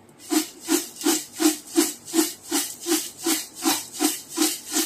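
Dry, crisp-roasted chivda of thin poha flakes, puffed rice and makhana being tossed back and forth in a large steel tin: a rhythmic rustling swish, about three strokes a second.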